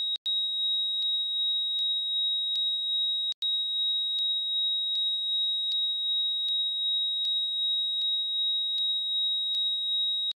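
Steady high-pitched electronic tone, like an ear-ringing effect, with faint ticks about every 0.8 seconds. It drops out twice for an instant, once near the start and once about three and a half seconds in, then cuts off abruptly at the end.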